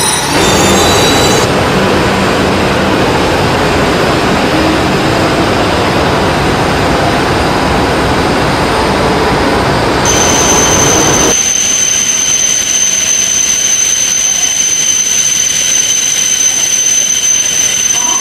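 Shinkansen trains at a station platform: a loud, even rush of train running noise. About eleven seconds in it changes abruptly to a quieter hum with a steady high-pitched whine.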